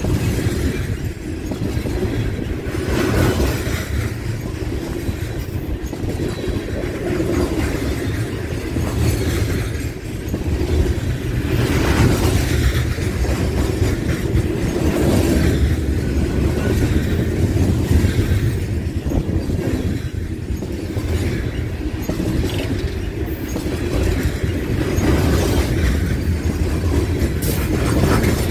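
Coal train's steel freight cars rolling past close by: a steady low rumble of wheels on rail, with occasional louder clacks as wheelsets cross rail joints.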